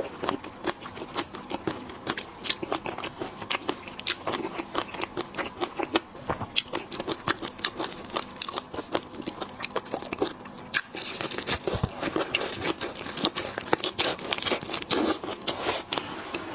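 Close-miked eating of lobster and shrimp: a continuous run of irregular crunches, cracks and chewing.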